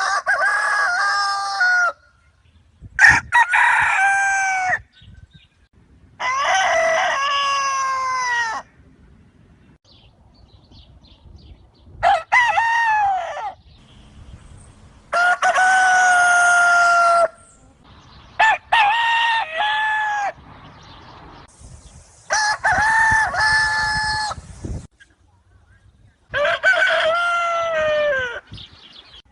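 Free-range caipira rooster crowing loudly and repeatedly, eight cock-a-doodle-doo crows of about two seconds each, most of them falling in pitch at the end, with short pauses between.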